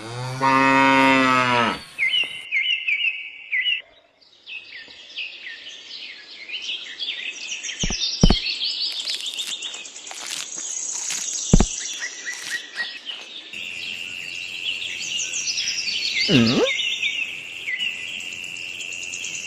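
A cow moos once, loud and about two seconds long, at the start, followed by birds chirping and twittering. A few sharp clicks come in the middle, a steady high-pitched trill runs through the second half, and a short questioning "mm?" hum comes near the end.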